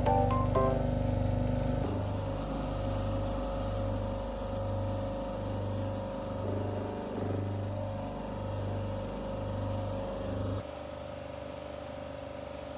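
Electric water pump of an air-conditioner cleaning rig, running with a steady hum and a low throb that pulses about once a second. The sound changes to a quieter steady hum near the end.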